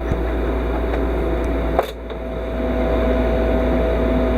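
Welding machine running with a steady mechanical hum and a fixed tone, with one sharp click a little under two seconds in, after which the hum briefly drops and builds back up.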